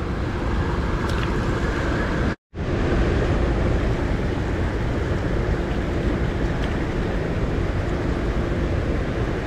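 Fast shallow creek water rushing steadily over rocks in a riffle. The sound drops out for a split second about two and a half seconds in.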